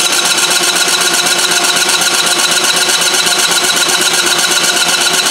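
24-volt electric starter cranking the diesel engine of a military 2 kW generator set, with a steady whine and a fast, even beat of compression strokes. Near the end the cranking stops and the engine spins down without firing.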